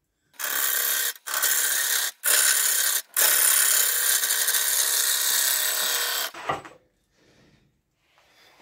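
A turning gouge cutting a large alder blank spinning on a wood lathe, a steady rasping hiss of shavings being peeled off. It comes in four runs with three brief breaks, the last lasting about three seconds. The cut stops abruptly about six seconds in, followed by a short knock.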